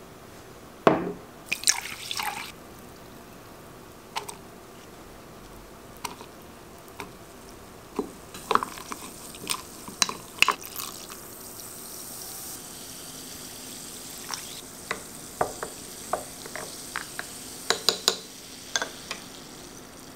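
A spoon clinking and tapping against a small glass while a drink of lemon, honey and sparkling water is mixed, with liquid dripping. About halfway through, a steady fizzing hiss of sparkling water sets in under the clinks.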